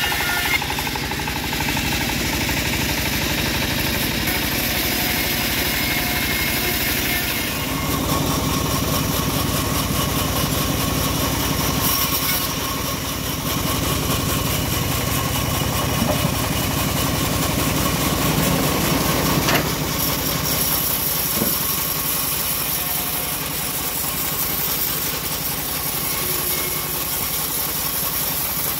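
Engine-driven homemade bandsaw mill running steadily while its band blade saws a long acacia log. The sound shifts about seven seconds in.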